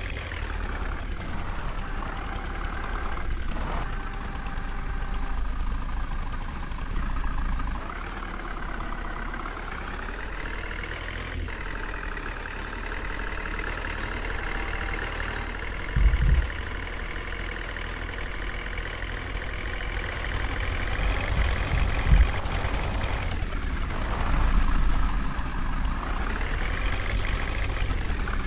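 Heavy diesel engine of a JCB backhoe loader running under load while pulling a stuck truck out of water, its pitch rising and falling as it is revved. Two heavy low thumps come about halfway through and again some seconds later.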